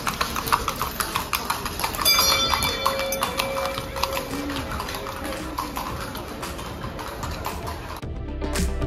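Horse's hooves striking the street in a quick, regular rhythm: a horse-drawn kalesa passing. A held tone sounds about two seconds in for a couple of seconds, and music cuts in near the end.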